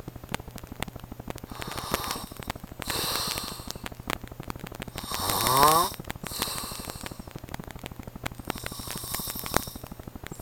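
A man snoring loudly, with five rasping breaths about one to two seconds apart. The loudest snore, about halfway through, rises in pitch.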